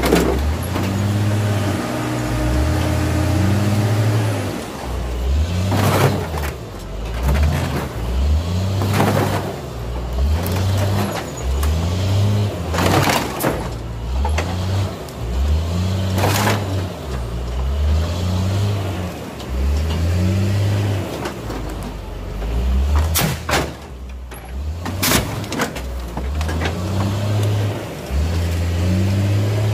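John Deere 544K wheel loader's diesel engine revving up and down again and again as its bucket presses into a box truck's sheet-metal body, with several loud crunches and bangs of metal crumpling.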